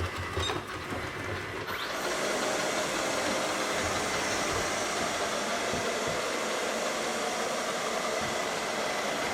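ILIFE V5s robot vacuum cleaner starting up: a couple of short electronic beeps, then about two seconds in its suction motor and brushes spin up with a rising whine and run steadily.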